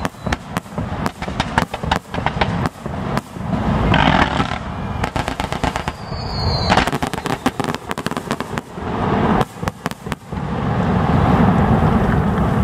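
Fireworks display going off in quick succession: a dense stream of bangs and crackling, with a brief high-pitched whistle about six seconds in. Near the end the reports run together into a steadier rumble.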